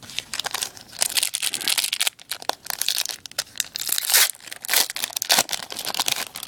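Foil hockey-card pack wrapper being handled and torn open, crinkling and crackling in repeated flurries.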